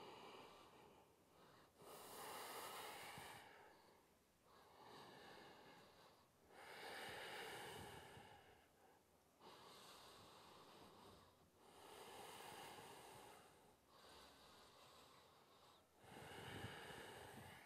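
A woman breathing slowly and deeply through the nose, faint: about four full breaths, each breath in or out lasting about two seconds with a short pause between.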